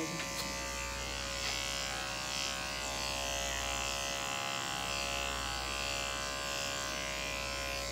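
Electric dog-grooming clippers running steadily with a buzzing hum as they trim a West Highland White Terrier's coat.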